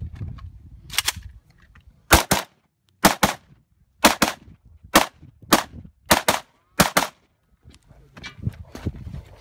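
Kalashnikov-pattern rifle in 5.45x39mm fired rapidly, about a dozen sharp shots over some five seconds, mostly in quick pairs.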